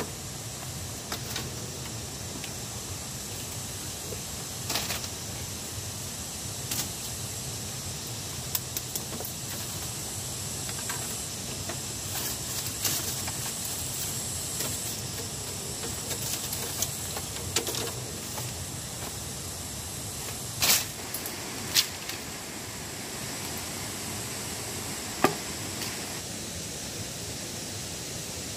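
Bamboo slats and poles clacking and knocking as they are handled and cut with a knife, a dozen or so sharp knocks at irregular intervals, the loudest a quick pair about two-thirds of the way through. A steady hiss sits underneath.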